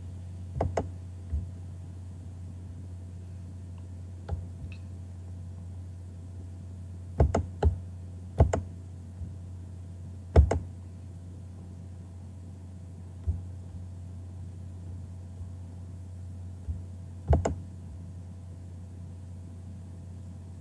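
Scattered clicks and taps of a computer mouse and keyboard, some in quick pairs, over a steady low hum.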